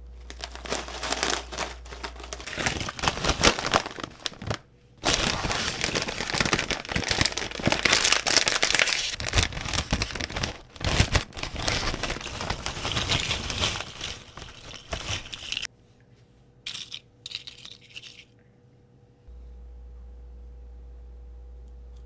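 Metallized plastic snack bag of Kkokkalcorn corn cones crinkling and tearing as it is handled and opened, then crackling and rustling as the cones inside are stirred. The crinkling stops about a quarter of the way from the end, after a few short last crackles.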